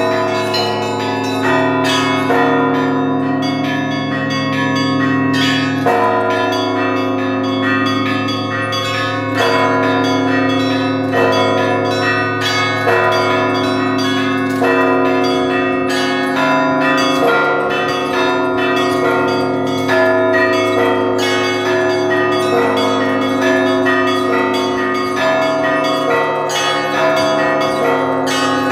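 Russian church bells rung in the traditional zvon style: small bells struck in a quick repeating pattern over the steady hum of deep bells, with heavier strokes about every one to two seconds.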